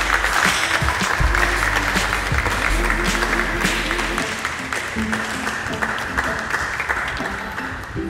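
Church congregation clapping in applause over music, the clapping thinning out toward the end.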